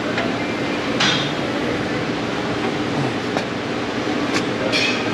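Metal clinks and a scrape as a Hemi V8's exhaust manifold is worked against its mounting. The sharpest scrape comes about a second in, with a few lighter clinks near the end. The manifold is hung up on a broken exhaust stud. A steady hum runs underneath.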